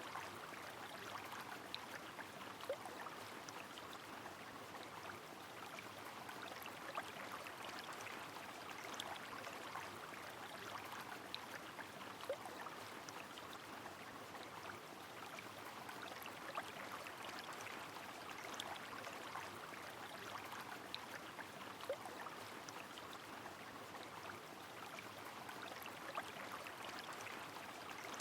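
Rain falling on a flowing river: a steady, even rush of water with scattered sharp drop ticks.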